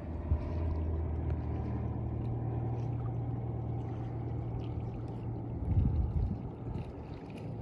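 Small boat's outboard motor running with a steady low hum, fading out about five seconds in. A brief low rumble follows about six seconds in.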